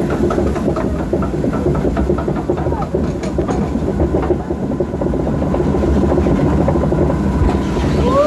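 Log-flume ride running along its course: a steady low rumble with a fast run of regular clacks, a little louder from about halfway.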